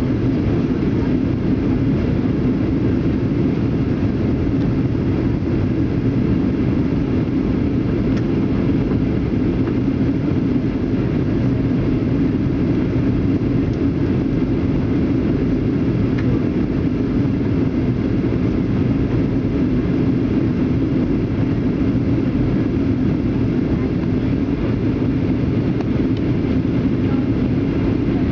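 Steady cabin noise inside a Boeing 737-800 airliner during its descent: the jet engines and the air rushing past the fuselage make an even, low drone.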